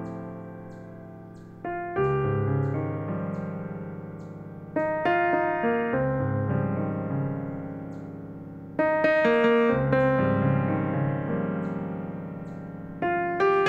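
Solo piano music played on a digital keyboard piano: slow chords struck every few seconds, each left to ring and fade, with higher notes carrying a melody above them.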